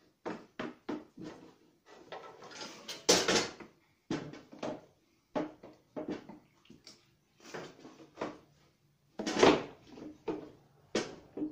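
Irregular clanks, knocks and scrapes of tools and metal parts being handled, about a dozen separate sounds with quiet gaps between, two of them louder, about three seconds in and about nine seconds in.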